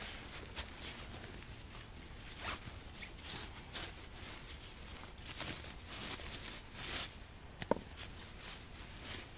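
A nylon fold-up bag being handled and unzipped: scattered rustles and zip-like scrapes, with one sharp click about three-quarters of the way through.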